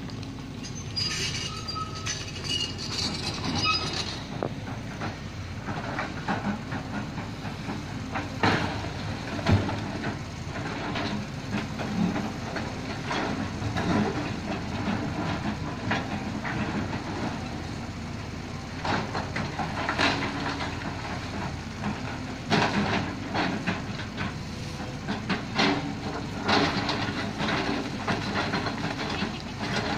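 Lonking hydraulic excavator working a rock cut: its diesel engine runs steadily while the bucket digs into loose rock, with repeated knocks and clatter of stones.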